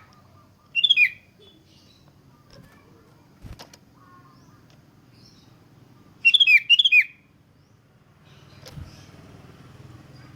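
Sooty-headed bulbul (kutilang) singing: a short phrase of quick warbled notes about a second in, then a longer phrase of several notes around six to seven seconds, over a faint low hum.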